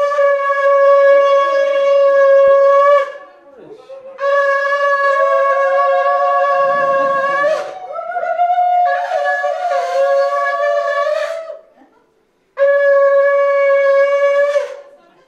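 A conch shell (shankha) blown in three long, steady blasts, the middle one the longest, as a ritual welcome of the goddess at the puja. A second, slightly higher tone sounds alongside during the middle blast.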